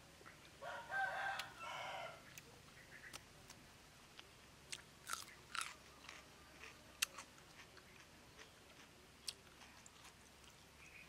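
A rooster crows once, starting about half a second in, in two parts. Then a person chews and crunches a mouthful of salad, with scattered sharp mouth clicks and smacks.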